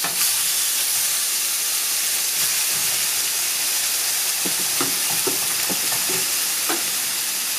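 Luderick (black bream) fillets sizzling steadily as they fry, marinated side down, in a preheated non-stick frying pan. A few light clicks sound about two-thirds of the way through.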